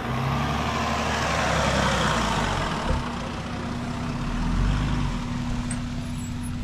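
A four-wheel-drive ute's engine running as it drives past close by, its engine and tyre noise swelling over the first couple of seconds and then easing, with a low rumble rising again near the end.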